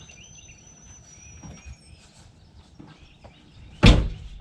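Faint outdoor background with light high chirping, then a single loud thump near the end.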